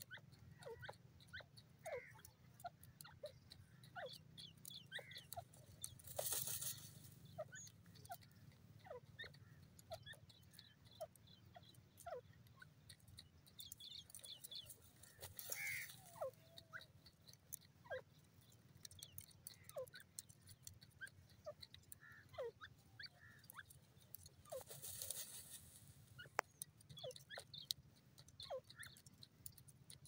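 Grey francolin dust-bathing in loose dry soil: faint scratching and ticking of soil grains, with three brief louder rushes of flicked dust at about 6, 15 and 25 seconds in.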